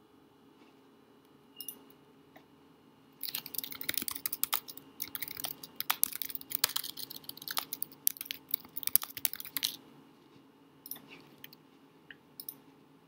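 Fast typing on a computer keyboard: a dense run of key clicks lasting about six seconds, followed by a few scattered clicks near the end.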